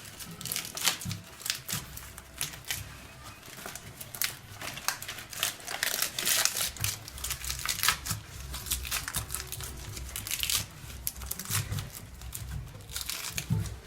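Banana leaves crinkling and crackling irregularly as they are folded and tucked in over a saucepan of matooke to keep the steam in. Low bumps of hands handling the leaves and pot come with them.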